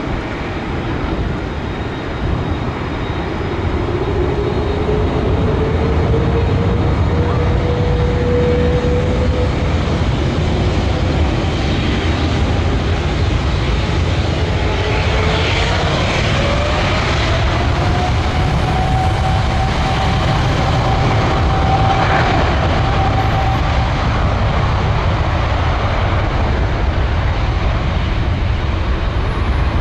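Jet airliner passing low overhead on landing approach: a steady, loud jet-engine noise that builds a few seconds in, with an engine whine that rises in pitch twice.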